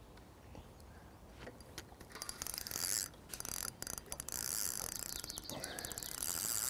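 A fishing reel's clutch (drag) ticking in rapid runs, starting about two seconds in, as a hooked carp pulls line off the spool.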